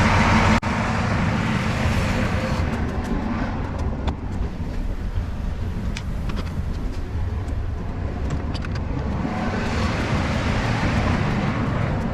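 An engine idling steadily, with a few faint clicks and knocks over it. The sound drops abruptly about half a second in.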